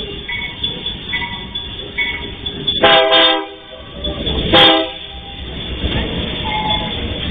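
Diesel freight locomotive sounding two short horn blasts about a second and a half apart, over the low rumble of the approaching train.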